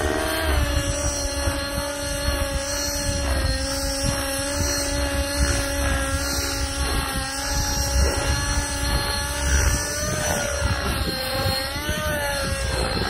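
Nitro RC helicopter in flight: a T-REX 600N's O.S. .55 HZ-R two-stroke glow engine, fitted with a tuned pipe, running at a steady high pitch together with the whine of the spinning rotors. The pitch dips and rises briefly near the end as the helicopter maneuvers.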